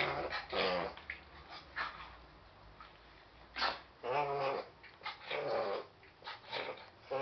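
Small dog having a reverse-sneezing fit: a run of short, harsh, gasping inhalations that come in bursts, with a lull around two to three seconds in.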